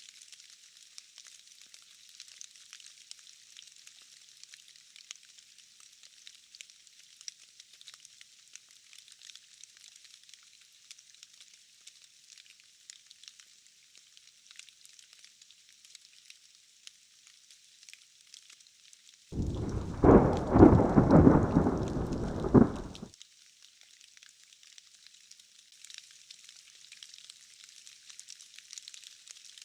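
Steady rain hiss with scattered drop ticks. About twenty seconds in comes a loud burst of thunder that rumbles for three to four seconds and then cuts off abruptly.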